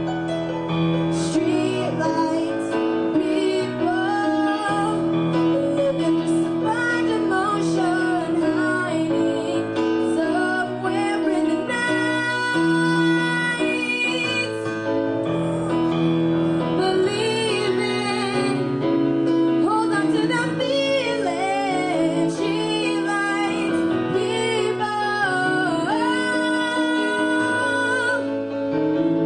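A young female singer singing a melody into a handheld microphone over instrumental accompaniment with held low notes.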